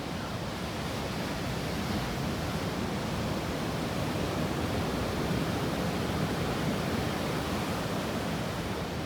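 Steady rush of ocean surf breaking on the reef.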